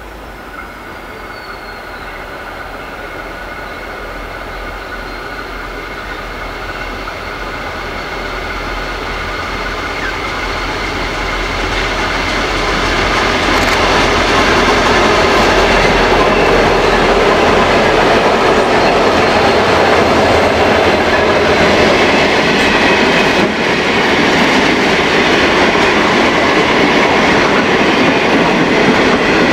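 Diesel-hauled freight train, with locomotives G531, 8055 and 9045 and a rake of hopper wagons, approaching and passing. It grows steadily louder as the locomotives come up and go by, about halfway through. It then stays loud and steady as the wagons roll past on the rails.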